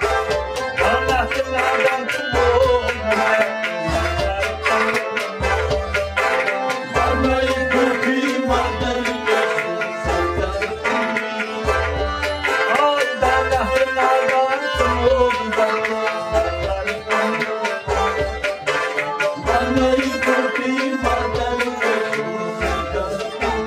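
Kashmiri Sufi folk ensemble playing: a harmonium holds steady chords, while a rabab and a bowed sarangi carry the melody over it. A clay pot drum (nout) keeps a regular deep beat.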